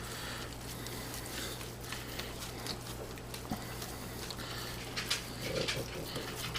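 Faint soft squishes and light taps of hands rolling raw ground beef and pork into balls, over a steady low hum.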